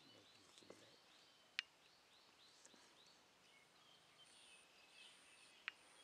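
Two sharp knocks of a cleaver striking a wooden stump chopping block while cutting grilled meat, about a second and a half in and again near the end, over faint bird chirping.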